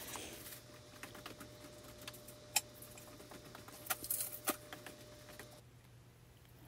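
Faint, scattered light clicks and taps, with a few sharper ones near the middle, over a low steady hum in the kitchen.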